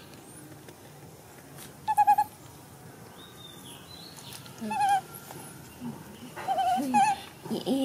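Baby macaque giving short, wavering high-pitched squeaks: one loud call about 2 seconds in, another near the middle, and a run of calls near the end.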